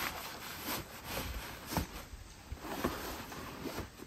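Camping gear being handled and shifted into place while packing: irregular light knocks and rubbing, with a few short strikes scattered through.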